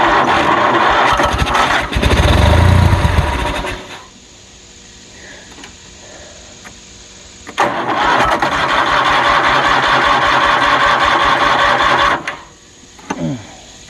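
Kohler 20 HP Magnum mower engine being cranked by its electric starter without catching, in two long bouts with a pause between and a brief bump near the end. It will not start; the owner suspects the fuel pump.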